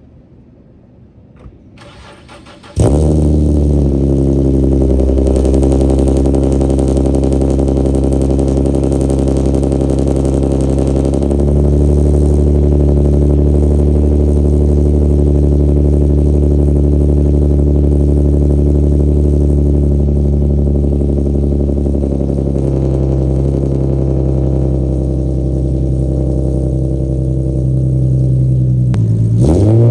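Infiniti G37's 3.7-litre V6, breathing through an ISR aftermarket exhaust, starting up about three seconds in and settling into a loud, steady idle, with a short blip of the throttle near the end.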